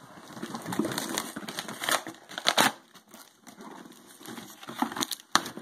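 A mail package being opened by hand, its packaging crinkling and crackling with a few sharp rips.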